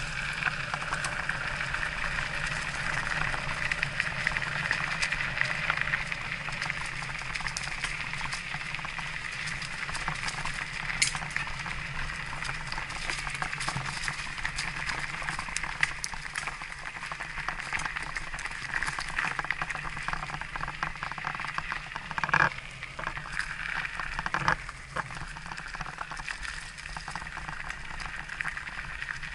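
Electric mountain bike tyres rolling uphill over loose, stony ground: a steady crackle with many small clicks, and a couple of louder knocks in the last third.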